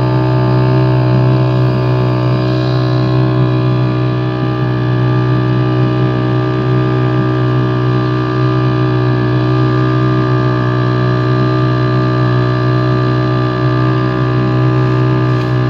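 Boat's engine running steadily at a constant speed: a continuous drone that holds the same pitch throughout.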